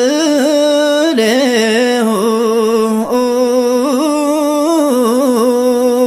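A solo male voice singing an Ethiopian Orthodox hymn (mezmur) in a slow, ornamented line, holding long notes that waver and bend in pitch without a break.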